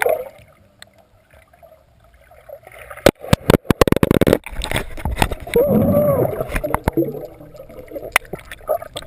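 Muffled underwater sound from a camera submerged in a swimming pool: water bubbling and swirling, with a rapid run of clicks about three seconds in and a short rising-and-falling hum, like a voice heard underwater, around the middle.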